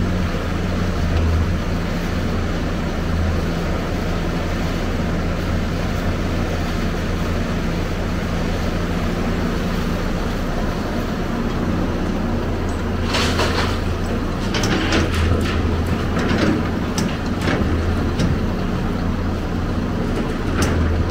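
Hyundai 290LC crawler excavator's diesel engine running steadily under load as it digs demolition rubble. From about 13 seconds in, a run of sharp knocks and clatter as broken brick and concrete shift in and around the bucket, with one more knock near the end.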